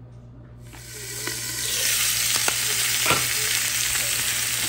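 Braised pork spare ribs sizzling as they go into hot oil in a frying pan on high heat to be browned crisp. The sizzle starts about a second in, builds as more pieces go in, then holds steady and loud, with a few light clicks.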